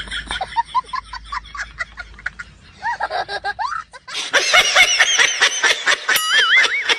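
Laughter: short, choppy snickering at first, turning louder and higher-pitched from about four seconds in, with wavering squeals near the end.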